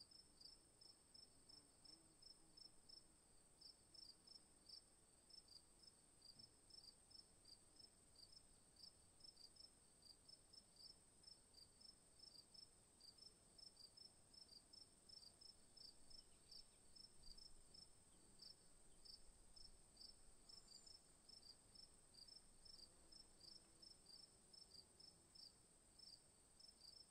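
A cricket chirping faintly and steadily, about two or three short high chirps a second, over a constant high-pitched whine.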